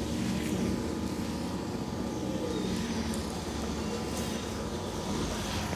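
Steady low rumble of street traffic, with a few faint clicks scattered through it.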